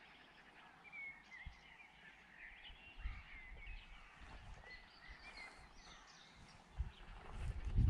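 Several small birds singing and chirping, short whistled notes and trills, with gusts of wind rumbling on the microphone from about three seconds in.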